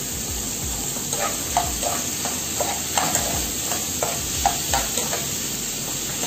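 Chopped onion, tomato and garlic sautéing in oil in a frying pan with a steady sizzle, while a spoon stirs and scrapes through them in short strokes, about two or three a second.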